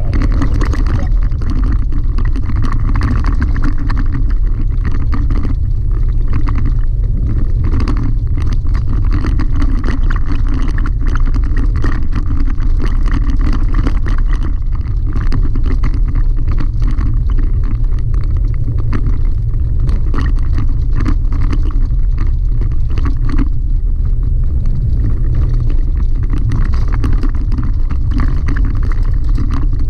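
Chevy Colorado ZR2 pickup driving over a rough gravel track, heard from inside the cab: a steady low rumble of tyres, suspension and engine, with frequent small knocks and rattles.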